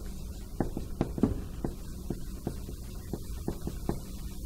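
Marker writing on a whiteboard: a quick, irregular run of short taps as the strokes go down, about three or four a second, over a steady low hum.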